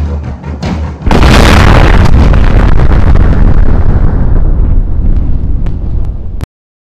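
A loud explosion bursts in about a second in, after a few drum hits, and keeps rumbling and crackling for several seconds. It dies down a little, then cuts off abruptly near the end.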